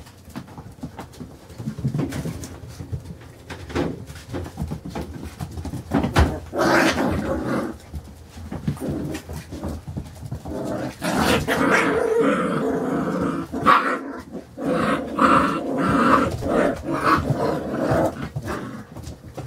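Five-week-old Carolina Dog puppies play-fighting, growling and giving small barks, mostly in the second half, with short clicks from paws and claws scrabbling on the wooden floor.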